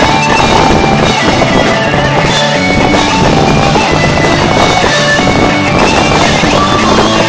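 Live rock band playing an instrumental passage, electric guitar over bass and drums, loud and distorted as recorded close to the stage.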